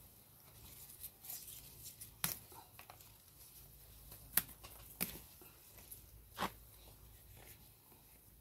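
Green chili peppers being picked by hand: stems snapping off the plant with a few sharp snaps among rustling leaves, the loudest a little under halfway through.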